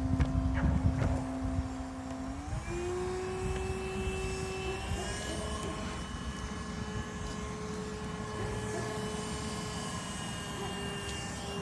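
Bee vacuum's motor running with a steady whine that steps up in pitch about two seconds in and then holds, with some knocking and rustling at the start.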